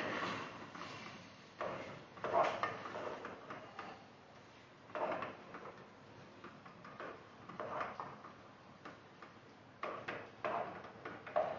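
A wooden spatula stirring boiled wheat grains in ghee in a steel pot, giving irregular scrapes and knocks against the pot every second or two.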